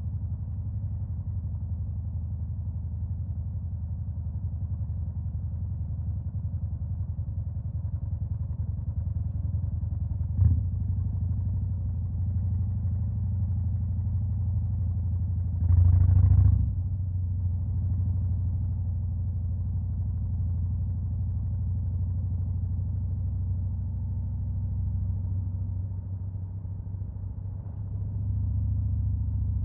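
Harley-Davidson Fat Boy's Milwaukee-Eight V-twin, with a Stage 2 upgrade, idling steadily with a deep low rumble. There is a sharp click about a third of the way in, and a short, louder burst of throttle just over halfway through.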